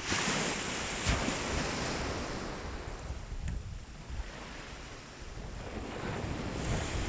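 Sea waves washing onto the shore, with wind buffeting the microphone. The wash swells at the start, fades over several seconds and builds again near the end.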